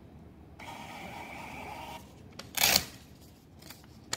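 Handheld payment terminal's built-in thermal printer buzzing for about a second and a half as it prints a payment receipt, followed by a short, loud rip of paper as the slip is torn off.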